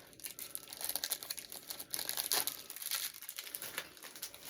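Packaging crinkling and rustling as it is handled, with irregular small crackles and clicks throughout.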